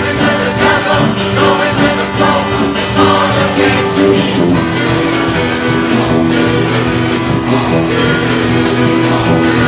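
Live music from a large pub choir singing held chords over a band with percussion, with a steady beat.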